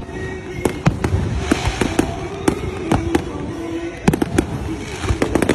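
Aerial fireworks display: shells bursting in irregular bangs and crackles, with a quick cluster of bangs about four seconds in.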